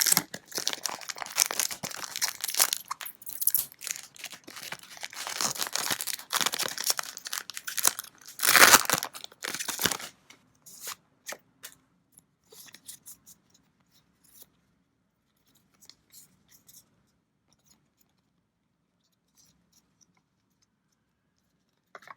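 Trading-card booster packaging being torn open and crinkled for about ten seconds, with a louder rip near the nine-second mark. After that there are only a few light taps and clicks as the packs are handled.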